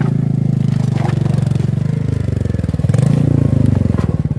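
Motorcycle engine revving under load while the bike struggles to climb a rocky slope, its rear wheel spinning for grip. The revs rise and fall about halfway through.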